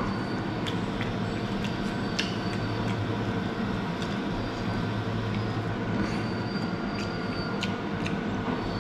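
A steady machine hum with a thin high whine running under it, and scattered light clicks and clinks of cutlery on a plate.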